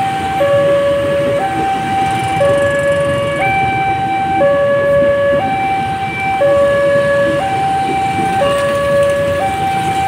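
Railway level-crossing alarm sounding a two-tone electronic warning, a higher and a lower tone taking turns about once a second, while a train passes over the crossing with a steady rumble.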